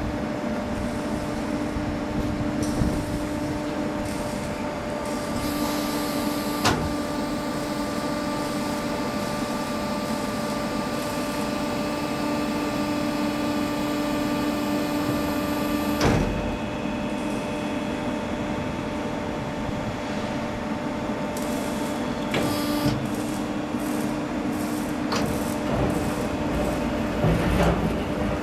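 Steel drum crusher running through a crushing cycle: a steady machine hum with several pitched tones that changes in load about five seconds in and again about sixteen seconds in, each change marked by a sharp clack, with a few more knocks near the end.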